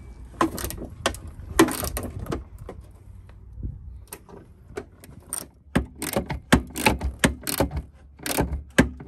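Socket ratchet wrench clicking in quick, uneven runs as it turns a rusted bolt, after a few louder knocks and clatters early on.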